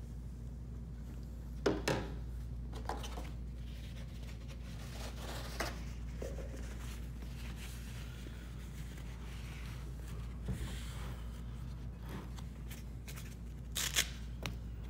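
Quiet handling sounds of a squeegee and cloth worked over a marble tile on a table: a few light knocks and some soft rubbing over a steady low hum.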